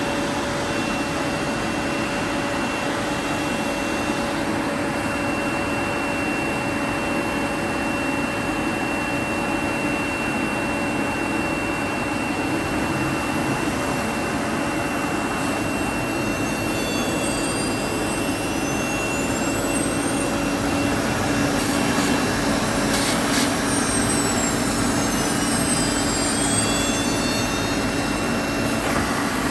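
A linear automatic-tool-change CNC router running: a steady rush of machine noise with a fixed high whine. In the second half high-pitched whines glide down and up in pitch, a few sharp clicks come about two-thirds through, and the noise grows a little louder.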